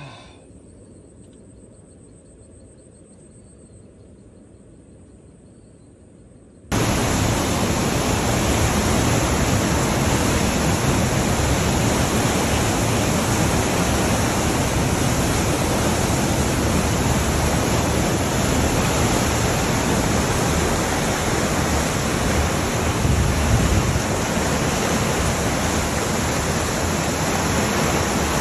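Quiet background for the first few seconds, then suddenly the loud, steady rushing of turbulent water churning out below a concrete dam spillway.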